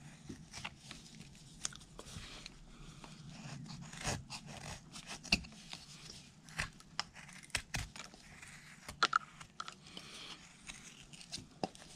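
Carving knife shaving slices off a basswood block by hand: irregular scraping cuts with short, crisp crunches and clicks as the wood is roughed down.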